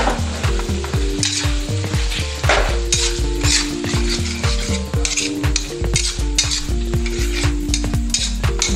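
Chicken sizzling in a hot metal wok while a metal spatula stirs and scrapes it around in repeated strokes.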